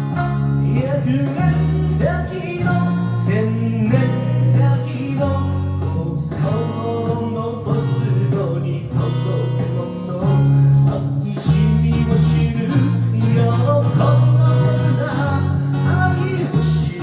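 Electric sanshin plucking a song melody, with sustained low bass notes underneath.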